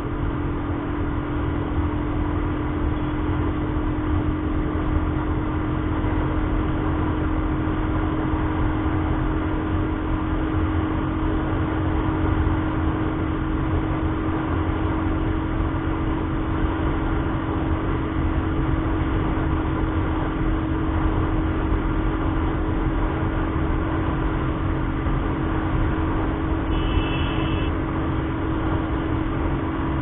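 Royal Enfield Thunderbird 350's air-cooled single-cylinder engine running hard at a steady high cruising speed, with wind and road noise rushing over the handlebar-mounted camera. The pitch of the drone stays steady throughout.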